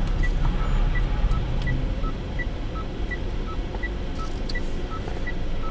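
A car's indicator ticking steadily in an alternating high-low tick-tock, a little under two ticks a second, over the low hum of the engine and road heard inside the cabin.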